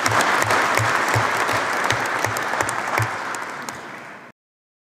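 Audience applauding, the clapping easing off slightly before cutting off abruptly near the end.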